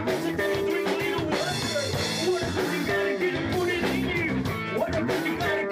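A funk rock band playing, with electric guitar, drums and a man singing.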